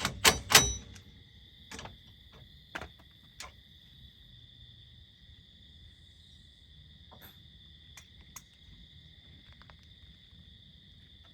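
Crickets chirring steadily and high-pitched. Over them comes a quick run of sharp clicks in the first second, then a few scattered single clicks and taps from tools on the rear wheel hub bolts.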